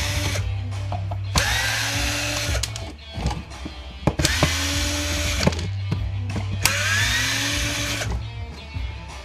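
Power drill run in three bursts of about a second and a half each, speeding up and slowing down each time as it backs out screws. Background music with a steady bass runs underneath.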